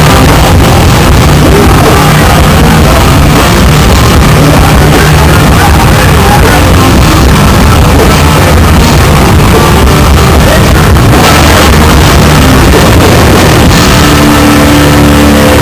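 A hardcore punk band playing live at full volume: dense distorted guitars and pounding drums, with shouted vocals, pinned at the top of the recording's level. Near the end the din settles into held, ringing chords.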